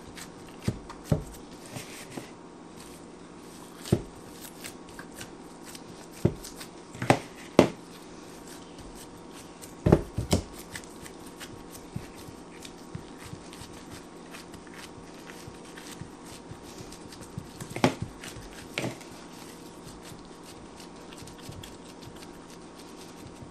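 Gloved hands pressing raw ground beef into a loaf pan, with scattered soft knocks and taps of the pan against the counter, about a dozen in all at uneven intervals.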